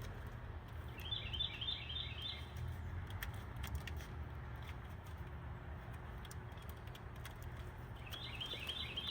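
A small songbird sings a quick run of chirps twice, about a second in and again near the end, over a steady low hum and a few faint clicks.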